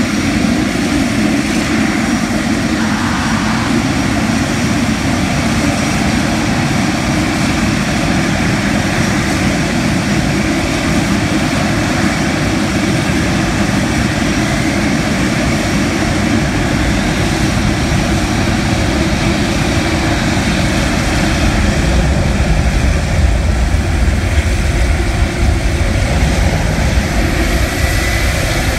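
Boeing 777's turbofan engines running at taxi power as the jet rolls slowly past: a steady jet whine over a rumble. The low rumble grows heavier in the last third, as the engine comes level.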